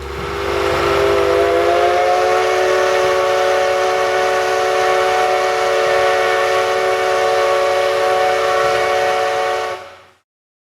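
Steam locomotive whistle blowing one long multi-note chord over a hiss of escaping steam, sliding up in pitch at the start as it opens, then held steady for about eight seconds before cutting off.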